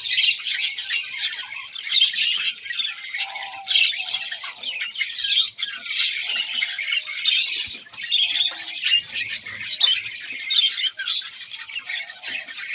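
A flock of aviary birds chirping and chattering all at once in a dense, unbroken din, with the odd louder squawk.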